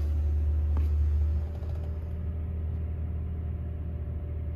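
Steady low rumble inside a pickup truck's cab, easing slightly about a second and a half in, with one faint click near the one-second mark.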